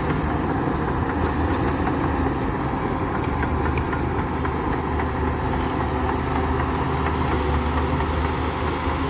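Komatsu D60P bulldozer's diesel engine running steadily, with a few faint clicks over it.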